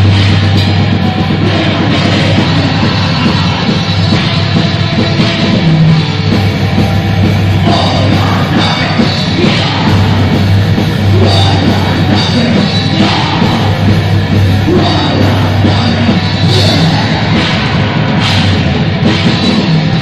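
Black metal band playing live: loud, continuous distorted electric guitars over a drum kit.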